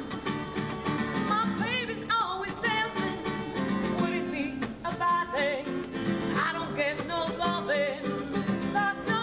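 A woman singing with a wavering vibrato over a strummed acoustic guitar; the voice comes in about a second in, over steady strumming.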